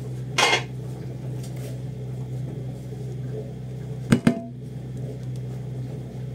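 A wooden spoon scrapes briefly about half a second in, then knocks twice sharply against a large cooking pot just after four seconds. Underneath is the steady low hum of a kitchen appliance.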